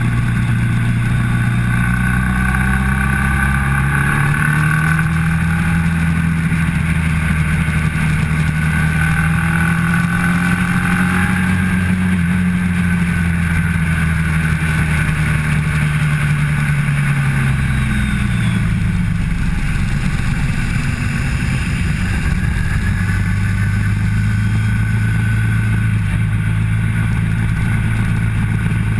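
Motorcycle engine at track speed, heard close from the bike itself: its note rises about four seconds in, holds high for some ten seconds, falls back around sixteen to nineteen seconds in, then runs steady at a lower pitch.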